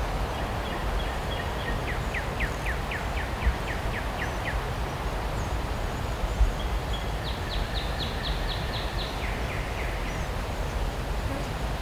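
A songbird singing two runs of quick, repeated down-slurred whistled notes, about four to five a second, the second run near the end dropping lower, over a steady low background rumble.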